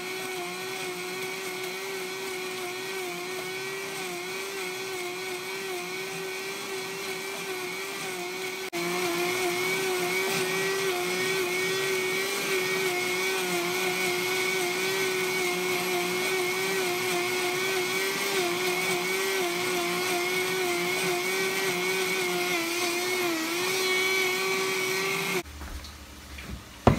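Countertop blender motor running steadily at high speed, grinding dehydrated chicken into powder. It gets louder about nine seconds in and stops suddenly a little before the end, followed by a single sharp knock.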